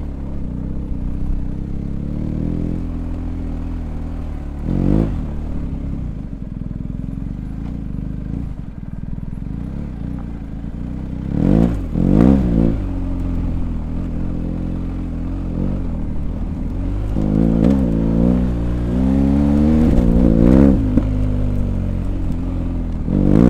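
BMW R1250GS Adventure's boxer twin running through an Akrapovic exhaust while riding off-road. The engine note holds steady, with short throttle blips about five seconds in, a quick pair just before the middle, and a run of rising and falling revs in the last third.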